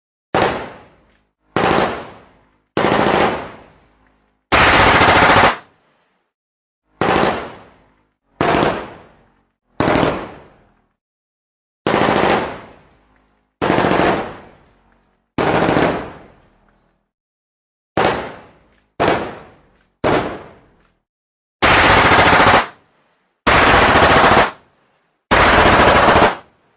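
Gunfire sound effects played one after another: single gunshots that ring out and fade over about a second, alternating with steady bursts of automatic fire about a second long that cut off sharply. Each is followed by a short gap of silence.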